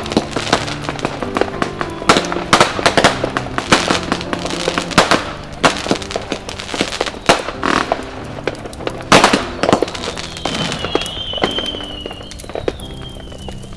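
Fireworks and firecrackers going off in rapid, irregular bangs over background music. The bangs thin out after about ten seconds.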